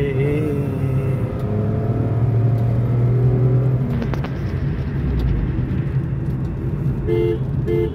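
Car driving on a city road heard from inside the cabin, a steady engine and road hum. About seven seconds in come a few short horn honks.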